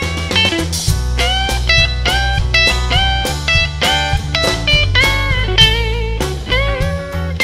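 Live blues-rock band playing an instrumental passage: a lead electric guitar plays sustained notes with string bends over bass guitar and drums.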